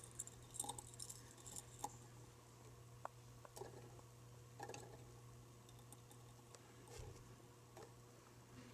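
Near silence: a faint steady low hum from a Harbor Breeze Endia ceiling fan running, with a few scattered soft clicks.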